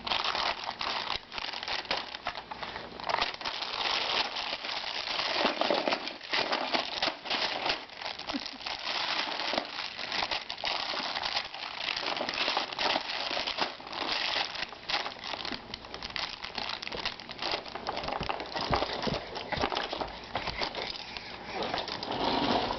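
Plastic baby-wipes package crinkling and crackling on and off as a baby grabs and squeezes it.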